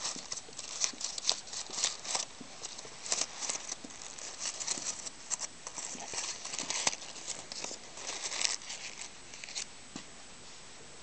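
A crumpled shiny wrapper crinkling and crackling as a baby's hands squeeze and handle it, in quick irregular crackles that stop shortly before the end.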